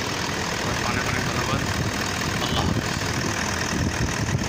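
Toyota Land Cruiser's 4.5-litre V8 D-4D turbo-diesel engine idling steadily with the bonnet up, running on fresh oil and a new oil filter.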